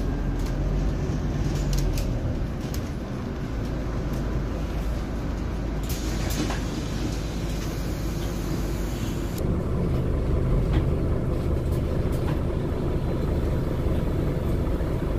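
Ride inside a moving Scania articulated city bus: a steady engine and drivetrain hum under road noise, with scattered light clicks. A hiss comes in about six seconds in and cuts off suddenly about three seconds later, and after that the engine sound grows a little louder.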